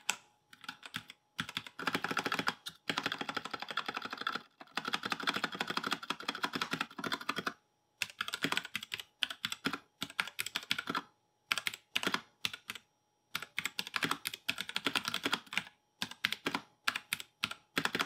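Royal Kludge RK84 mechanical keyboard with RK brown switches being typed on fast, keystrokes clacking in quick runs of a few seconds separated by short pauses.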